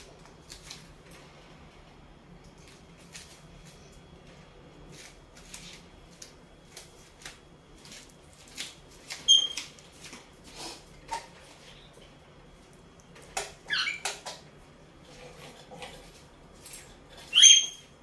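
Senegal parrot working a red toy with its beak: scattered light clicks and snaps, with a few short, high squeaks, the loudest about nine seconds in and near the end.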